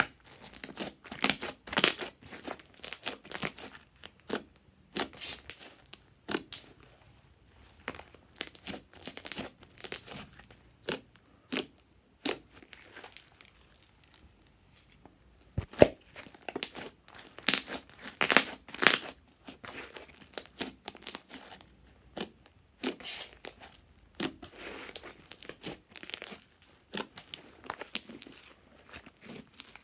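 Fluffy slime being stretched, folded and squeezed by hand: irregular clusters of sticky crackles and pops with brief pauses between handfuls.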